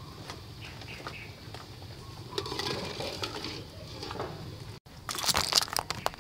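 A wire strainer scraping and clinking in a pot of hot water as boiled eggs are scooped out. Near the end come a louder splash and clatter as the eggs and dripping water are tipped from the strainer into a woven bamboo basket.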